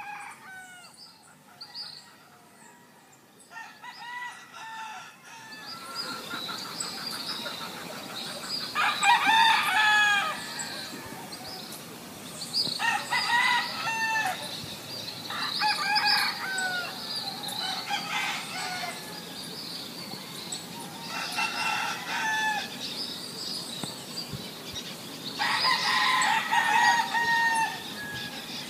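Rooster crowing about five times, each crow a long call, with smaller bird calls in the first few seconds and a steady background hiss that comes in about six seconds in.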